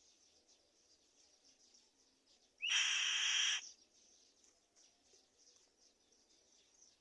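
Black-winged kite giving one harsh screeching call about a second long, near the middle, over a faint steady chirring of insects.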